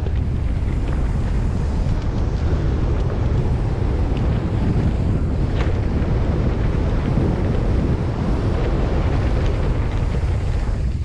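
Steady heavy wind buffeting on the camera microphone from a mountain bike moving at speed down a trail.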